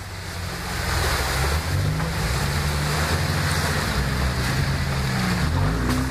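Jeep Wrangler engine running as it drives through a muddy water hole, its note rising and falling with the throttle, over the splashing and sloshing of muddy water around the tyres.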